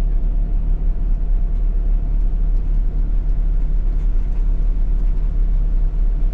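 Steady low rumble of a vehicle on the move, engine and road noise running evenly.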